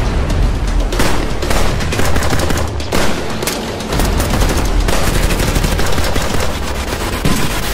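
Rapid, continuous volleys of gunfire sound effects, like machine-gun fire, over a low background music bed.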